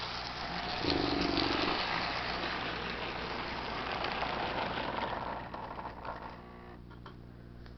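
HO scale model train, a Mehano SD40-2 locomotive pulling a string of freight cars, rolling past on its track: a steady rattling whir of the wheels and motor. It grows louder about a second in and fades away over the last few seconds as the train moves off.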